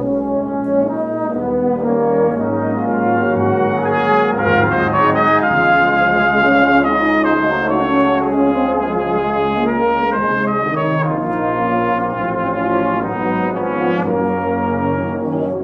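Geneva Cardinal Professional cornet playing a melodic passage, held notes moving from pitch to pitch without a break.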